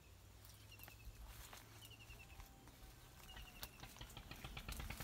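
Near-silent outdoor quiet in which a small bird calls a few times, each call a quick run of four or five high chirps, with a few faint clicks.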